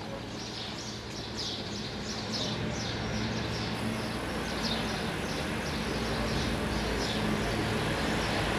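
Small birds chirping over and over, a few short chirps a second, over a steady low hum and outdoor background noise.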